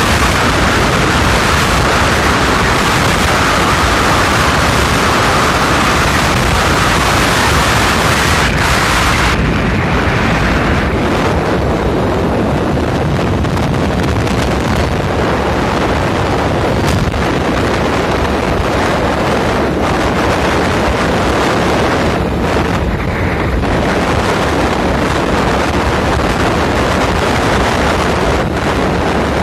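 Wind rushing over the microphone of a camera in a moving road vehicle, with steady low road and engine rumble beneath. A band of hiss thins out about nine or ten seconds in.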